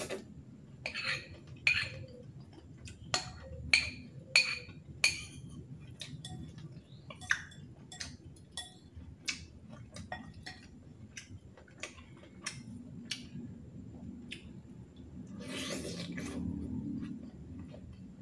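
A metal fork clinking and scraping against a ceramic bowl while noodles are picked up, in a run of sharp clinks that is densest and loudest in the first five seconds and then sparser. About fifteen seconds in there is a noisier stretch of a second or two.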